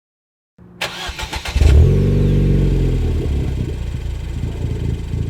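A car engine being started: a brief run of starter-cranking clicks, then the engine catches with a flare of revs that drops back, and it settles into a steady idle.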